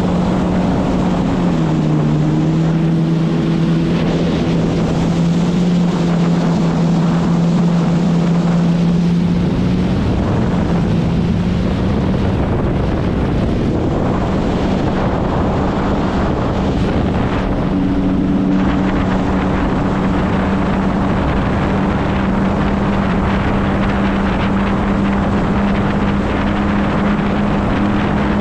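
Kawasaki Ultra 160 LX-S jet ski's naturally aspirated four-cylinder engine running at a steady cruise, over the rush of water and wind on the microphone. The engine note drops slightly about a second and a half in and climbs back about ten seconds in.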